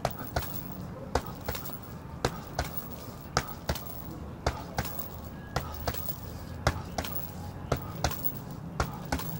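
Boxing gloves striking a hanging heavy bag in one-two combinations: pairs of sharp thuds, about one pair a second.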